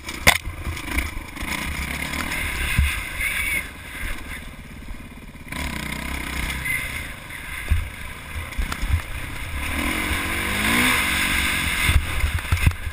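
Dirt bike engine running and revving while riding rough, rocky single track, under an uneven low rumble with thumps. The engine pitch rises about ten seconds in.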